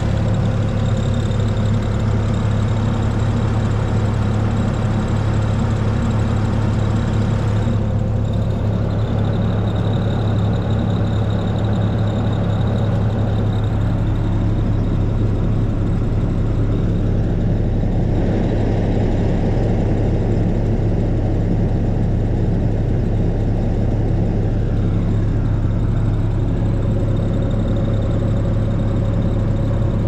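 2017 Bobcat T740 compact track loader's diesel engine idling steadily, heard from the operator's cab, with an even low hum that does not rise or fall.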